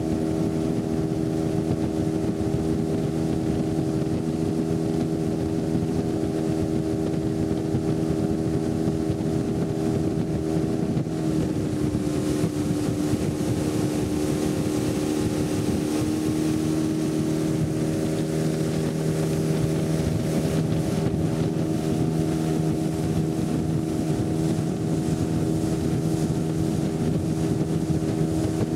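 A small motorboat's engine running steadily under way, heard from on board; about halfway through its note dips slightly for a few seconds, then comes back up.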